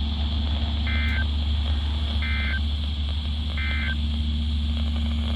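Emergency Alert System end-of-message signal on NOAA Weather Radio: three short two-tone SAME data bursts, each a fraction of a second and about a second apart, marking the end of a severe thunderstorm warning. They play over steady radio hiss and a low hum.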